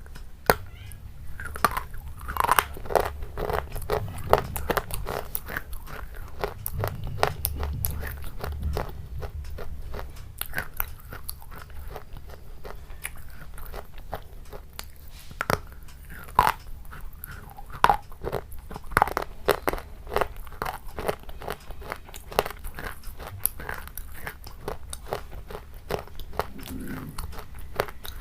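A person biting into and chewing crunchy food, with many sharp crunches and crackles at irregular intervals throughout.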